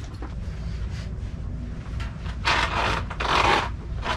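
A person settling onto a bed with blankets: fabric rustles and scrapes twice in a row about halfway through, over a steady low rumble.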